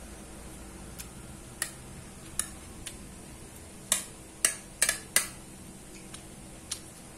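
Metal spoon clinking and scraping against a ceramic plate while scooping up fried rice: about a dozen sharp clinks, the loudest bunched together around the middle.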